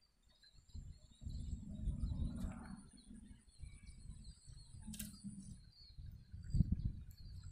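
Wind buffeting the microphone in uneven gusts, with faint bird chirps in the background and a single sharp click about five seconds in.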